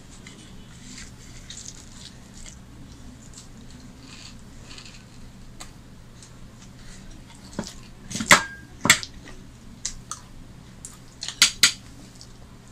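Eating by hand at a table: paratha torn with the fingers over a glass plate, soft faint clicks, then a few sharp clinks of tableware in the second half, one ringing briefly.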